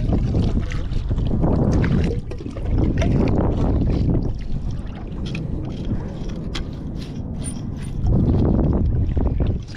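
Wind buffeting the microphone over water sloshing and splashing as ghost shrimp gear is rinsed. The wind drops in the middle, where small splashes and drips stand out, then gusts up again near the end.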